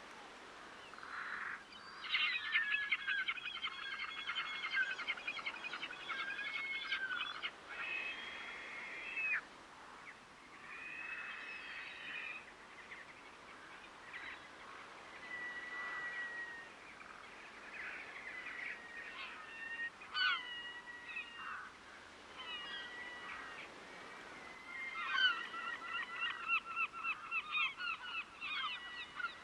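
Waterbirds calling over a faint steady background: a fast run of repeated harsh calls, then scattered single calls and short gliding notes, and another fast run near the end.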